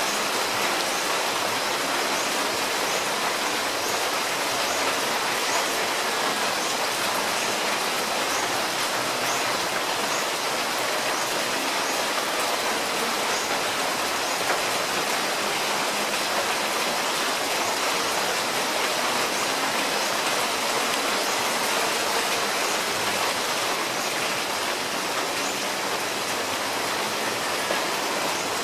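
Steady rain, an even hiss, with faint short high chirps repeating a little more than once a second.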